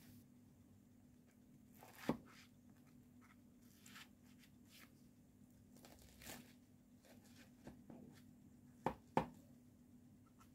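A spatula cutting into baked bread pudding with a soft crunch of the crisp top, with sharp taps of the spatula against the metal baking pan, the loudest two close together near the end. A faint steady hum sits underneath.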